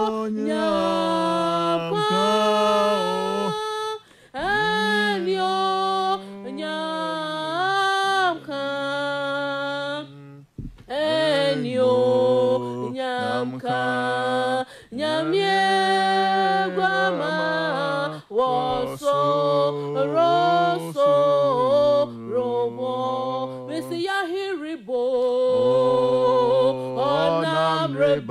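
A woman and a man singing a Twi-language song without instrumental accompaniment, in long held and gliding notes with brief breaks between phrases.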